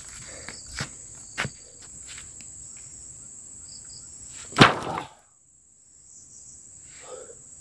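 Insects chirring steadily in a high even band, with a few light knocks and, about four and a half seconds in, a single heavy thud as a carried log is set down.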